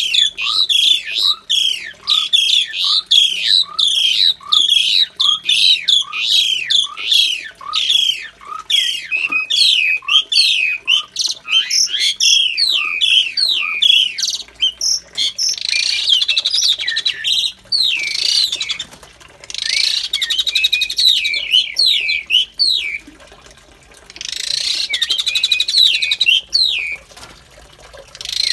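Asian pied starling (jalak suren) calling loudly in a cage: a long run of repeated chirping notes, about two a second, changing about halfway to bursts of harsh chattering.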